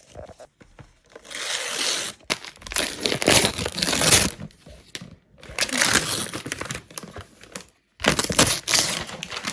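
Gift wrapping paper being torn and crumpled as presents are unwrapped, in several rustling bursts of a second or two each.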